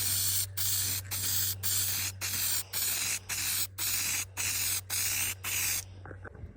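Aerosol can of Vice Grip Garage Shine Juice spraying in a quick series of short hissing bursts, about two a second, that stop about six seconds in.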